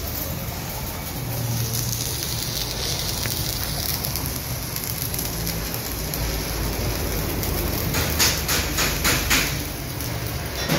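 Electric arc welding: the arc's steady crackling sizzle, with a run of sharper, louder pops about eight to nine and a half seconds in.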